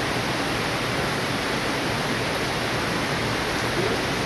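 Heavy rain falling steadily, an even hiss of a downpour with no breaks.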